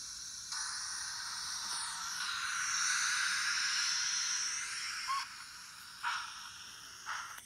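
Train Tech SFX Sound Capsule playing a steam-hiss sound through its small speaker, its program for a parked steam locomotive. The hiss starts about half a second in, swells and drops away about five seconds in, and a few light knocks follow near the end.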